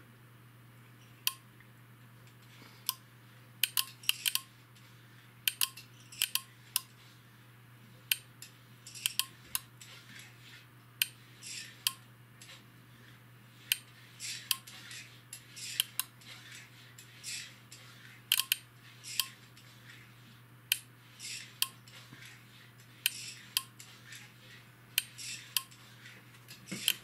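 Relays of a Teplocom ST-400 voltage stabilizer clicking irregularly, in single clicks and quick clusters of two or three, as they switch transformer taps while the input voltage is swept up and down with a variable autotransformer. A steady low hum runs underneath.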